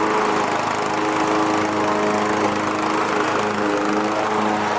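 Riding lawn mower's engine running steadily, its pitch stepping slightly about three and a half seconds in.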